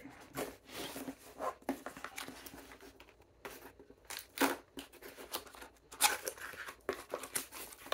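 Small brown cardboard box being opened by hand: irregular rustling, scraping and tearing of cardboard as the flaps are worked open, loudest about four and a half and six seconds in.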